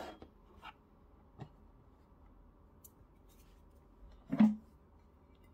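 Light clicks and taps as a sheet and a small digital scale are set down on the stainless drip tray of a Breville Barista Pro espresso machine, followed about four seconds in by a single louder knock with a dull thud.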